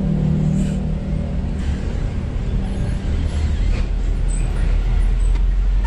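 Road traffic passing close by: a steady motor-vehicle rumble that grows heavier about four and a half seconds in.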